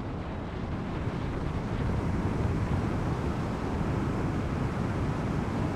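Wind buffeting the microphone and tyre and road noise from a LiveWire S2 Del Mar electric motorcycle cruising at about 65 mph, a steady rush with no engine note, growing a little louder over the first couple of seconds.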